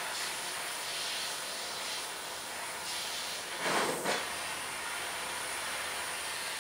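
Handheld gas torch hissing steadily as its flame plays on a cut-open lithium battery. A short, louder rush of noise comes a little past halfway.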